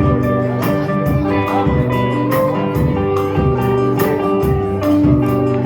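A live rock band playing an instrumental passage: guitar to the fore over sustained notes, with drum and cymbal hits keeping a steady beat.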